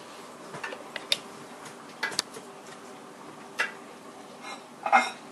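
Metal slotted spoon clinking and scraping against an enameled cast-iron Dutch oven: several separate sharp clicks at irregular intervals, the loudest near the end.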